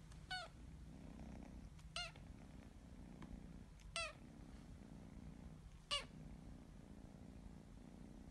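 Grey tabby kitten purring softly while being scratched under the chin, giving four short, high squeaky meows about two seconds apart.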